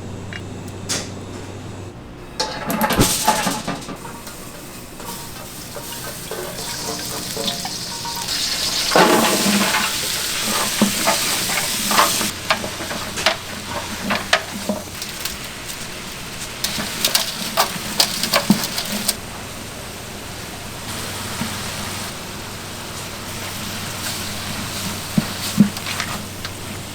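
Restaurant kitchen food-preparation sounds: a steady hiss that swells for several seconds before the middle, with scattered clicks and knocks of utensils and containers.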